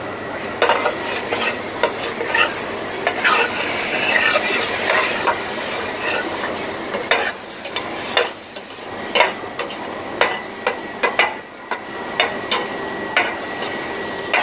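Flat metal spatula stirring and scraping thick, nearly done ash gourd halwa around a large metal pot, with irregular scrapes and knocks against the pot. Beneath them the mixture sizzles steadily as it cooks.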